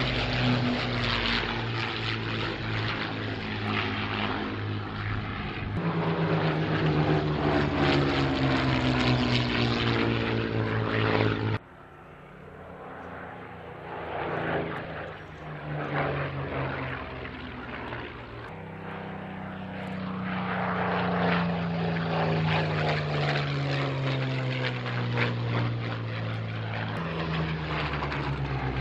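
Avro Lancaster's four Rolls-Royce Merlin V-12 piston engines running in a fly-past, their note falling in pitch as the bomber goes by. About halfway through the sound cuts off suddenly to a quieter engine sound. This builds as Supermarine Spitfires pass, with the piston-engine note again falling in pitch as they go by.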